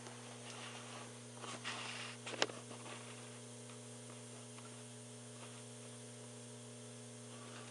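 Steady low electrical hum, with a few faint clicks and one sharper tap about two and a half seconds in.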